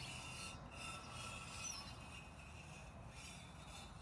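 Grinding, rasping noise from a GM LQ4 6.0 L V8 as it is turned over with its heads off, coming in stretches with brief pauses.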